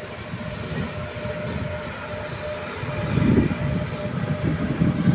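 EP1 AC electric locomotive hauling a passenger train as it approaches along the platform. Its wheels and motors make a low rumble that grows louder about three seconds in, with a faint steady tone running through it.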